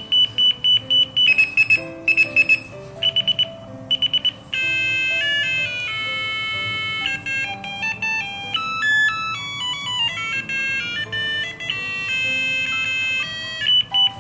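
Digital alarm clock stepping through its built-in ringtones. First come several patterns of high electronic beeps: rapid single beeps, then groups of three. From about four and a half seconds in, an electronic beeping melody plays, and fast beeping returns near the end.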